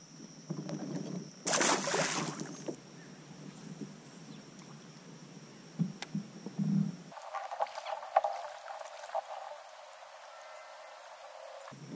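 Kayak paddling and water splashing, with a louder splash about two seconds in. A steady high insect drone runs under the first half and stops about seven seconds in.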